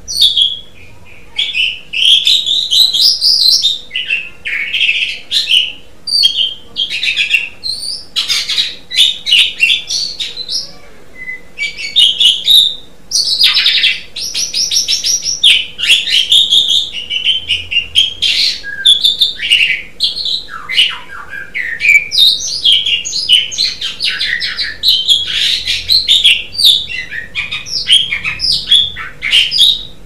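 Pied starling (jalak suren) singing a long, busy song of loud whistles, rapid chatters and sharp clicks, phrase after phrase with hardly a pause.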